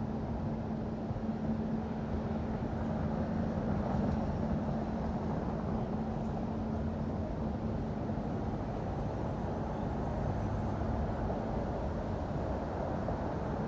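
Steady city street traffic noise: a continuous low rumble of vehicles, with a steady hum that fades out near the end.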